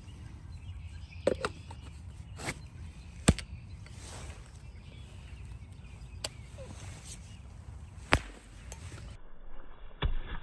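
A string of separate sharp clicks and snaps, the loudest about a third of the way in, from a smoke grenade's modified M228-type striker fuze and cardboard canister being assembled, armed and thrown. They sit over a low, steady background rumble.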